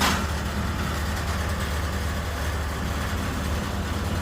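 Portable concrete mixer's engine running steadily with a low drone, and a brief rush of noise right at the start.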